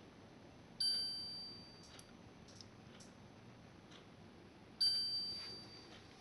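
Two electronic beeps from the Philips 3000 series air purifier's touch control panel as its buttons are pressed. Each is a bright ding that fades over about a second, the second coming about four seconds after the first, over the faint hiss of the fan on a low setting.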